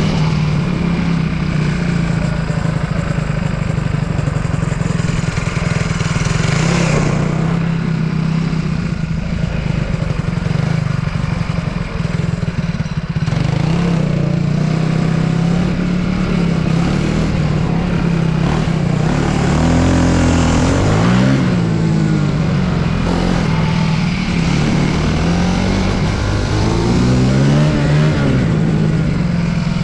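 Racing kart engine driving through a cone slalom, heard close up from on board. It holds a steady pitch for long stretches, then swings up and down in quick rises and drops as the throttle is opened and closed between cones, most clearly twice in the second half.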